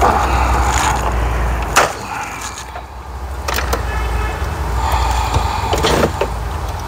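Hard plastic dash trim scraping and clicking as the instrument cluster bezel is worked loose by hand from its clips, with one sharp snap about two seconds in, over a steady low hum.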